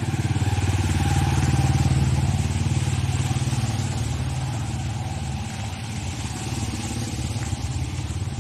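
Motorcycle engine of a sidecar tricycle driving past close by through flood water, loudest about two seconds in, then fading. A second motorbike can be heard further off behind it.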